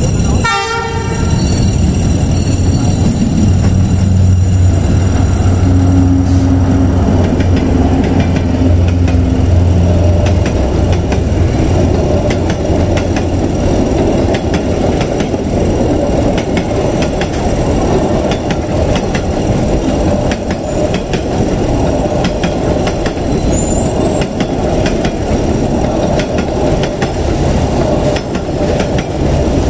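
D19E diesel-electric locomotive passing close by, its engine a deep steady drone for about the first ten seconds. Then the passenger coaches roll past with a steady rumble and regular clicking of wheels over rail joints.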